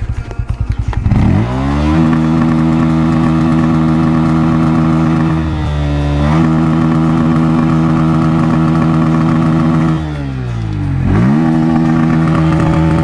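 Bajaj Pulsar N160 BS6's single-cylinder engine and exhaust being revved. It comes up from a slow, lumpy idle to a steady high rpm and is held there. The revs dip briefly about six seconds in, then drop again near ten seconds before climbing back and holding.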